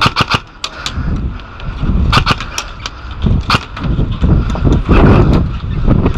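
Airsoft guns firing irregular single shots, a dozen or so sharp cracks at uneven spacing, over wind rumbling on the microphone.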